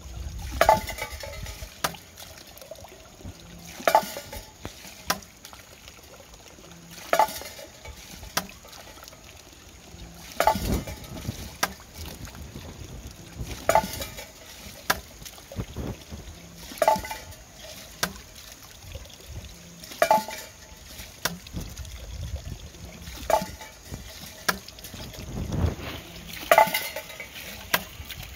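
Bamboo see-saw water device filling from a pouring pipe and tipping over and over, giving a hollow knock about every three seconds. The pipe's water pours and splashes steadily underneath.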